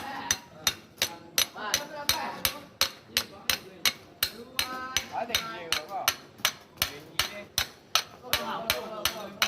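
Hand hammer striking metal in a steady rhythm, about three blows a second, with faint voices behind it.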